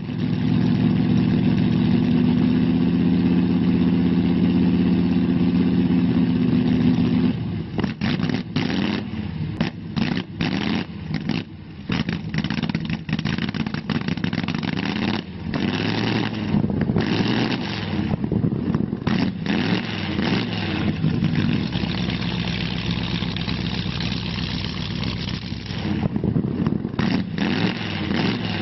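Hot rod engine held at steady high revs for about seven seconds, then blipped over and over with the throttle, the revs rising and falling with short drops between. It settles into a steadier run for a few seconds near the end before more blips.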